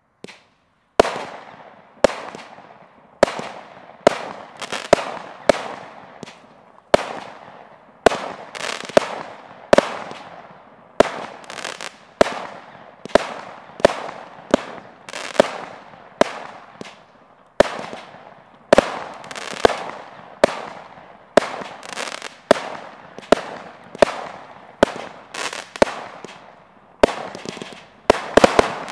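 Celtic Fireworks 'Beijing Blitz' multi-shot firework barrage firing, a sharp bang about once a second, each followed by a fading crackle as the stars burst. Near the end several shots go off in a quick flurry.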